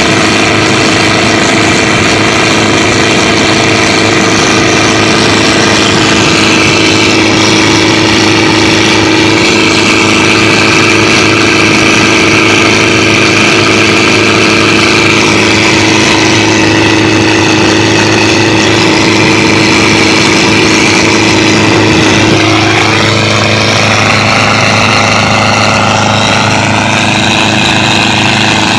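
Pompong motorboat engine running hard and steady under way, with the wake rushing along the hull. About two-thirds of the way through the engine note wavers, and near the end it rises.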